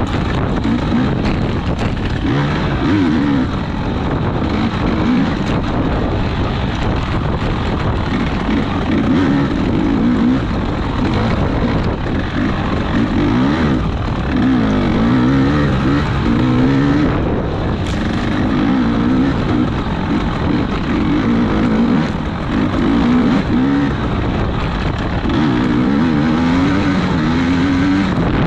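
Off-road race vehicle's engine running hard, its pitch rising and falling over and over as the throttle is worked, over rushing wind noise.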